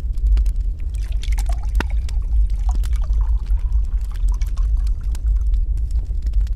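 Wood fire crackling in a fireplace over a deep steady rumble, with liquid being poured into a glass from about one to three seconds in.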